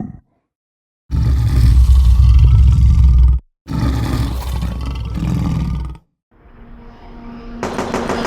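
Two loud roars in a row, each about two seconds long, separated by a brief gap. Near the end a different sound with a steady hum fades in and grows louder.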